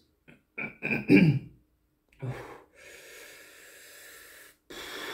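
A man breathing out hard in two long, noisy exhalations through a burning mouth and throat after eating a superhot chili, with a few short voiced sounds just before.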